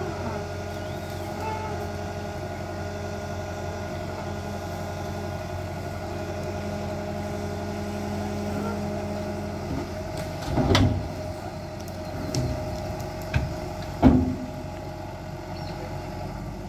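Tata Hitachi excavator's diesel engine running steadily under load while it pushes an overturned Ashok Leyland tipper lorry upright. About two-thirds of the way through come several heavy thuds as the lorry comes down onto its wheels, the loudest a few seconds later.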